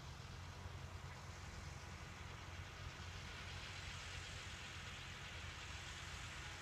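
Distant New Holland TT55 tractor's diesel engine droning faintly and steadily while it spreads fertilizer. A steady hiss sits over it and grows a little louder after the middle.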